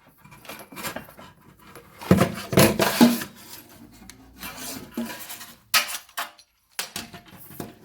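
Small metal clinks, knocks and rubbing as a new kitchen faucet's parts and supply hoses are handled and fitted, in irregular bursts with the loudest about two to three seconds in.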